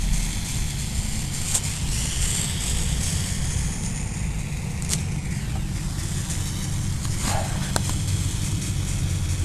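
Steady low rumble with a few faint clicks and taps.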